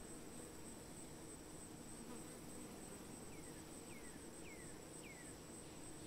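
Faint, steady high-pitched insect trill, with four short falling chirps evenly spaced in the second half.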